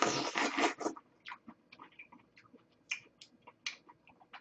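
A bite into a peach, then chewing, with many small wet mouth clicks and smacks. The bite is the loudest part, in the first second.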